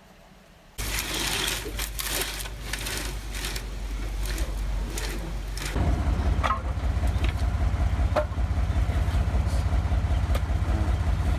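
Wood fire crackling and snapping in a stone bread oven, with many sharp cracks. About halfway through, a heavy low rumble joins it.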